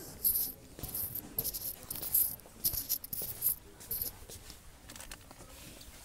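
Irregular bursts of crackly, hissy rustling from a phone being handled and rubbed against clothing, busier in the first few seconds and thinning out near the end.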